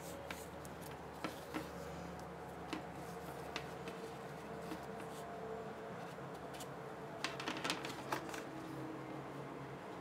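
Small clicks and rubbing from a 3.5 mm audio cable being handled and bent in the hands, with a cluster of quick clicks near the end, over a steady low room hum.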